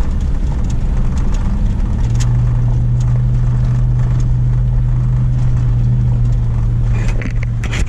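Vehicle driving on a dirt and gravel road, heard from inside the cabin: a steady low engine and road drone, which settles into a strong steady hum about two seconds in.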